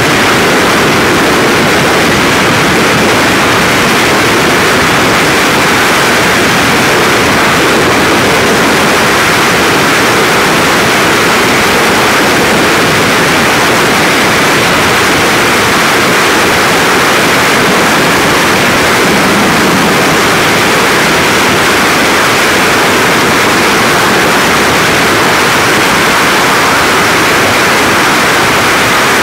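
Loud, steady rush of freefall wind buffeting the camera's microphone, unbroken throughout.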